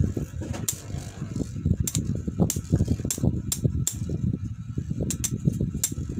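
Two metal-wheeled Beyblade spinning tops, L-Drago Destroy F:D and Diablo Nemesis X:D, rattling as they spin across the stadium bowl, with repeated sharp clicks as they strike each other.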